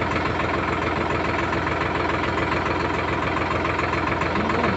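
Sonalika Tiger 55 hp tractor's diesel engine idling steadily.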